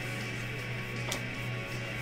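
Background music with guitar, with a single light click about a second in.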